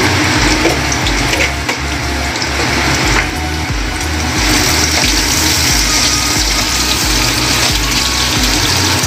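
Potato pieces frying in hot oil in a kadhai, a steady sizzle, with a few light clicks of a spatula against the pan. A low background music beat throbs underneath.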